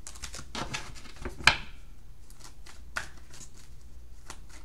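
Tarot cards being shuffled by hand: a run of soft, irregular card flicks and rustles, with one sharper snap about a second and a half in.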